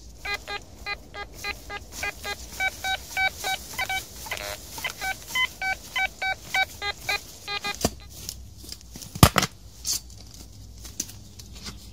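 Metal detector giving a quick run of short beeps at shifting pitches, about three or four a second, as its coil passes over metal in the ground; the beeping stops about seven and a half seconds in. Then come a few sharp knocks, the loudest about nine seconds in.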